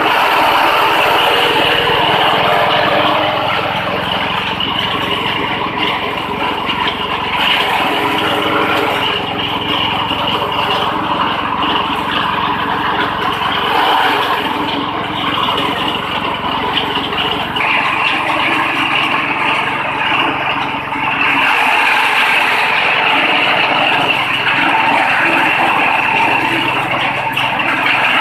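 Grass chopper driven by a small single-cylinder petrol engine running steadily at speed, its blades continuously chopping grass stalks fed through the roller infeed, the chopped grass spraying out of the discharge chute.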